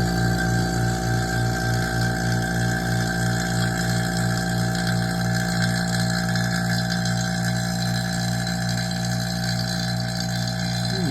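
Electric vacuum pump running steadily, with a low hum that pulses in a fast, even rhythm, while it pulls a deep vacuum.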